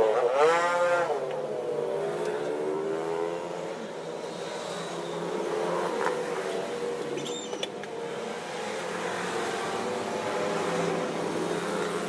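A motor vehicle engine revs briefly about half a second in, then keeps running at a fairly steady pitch, over a background of street traffic noise.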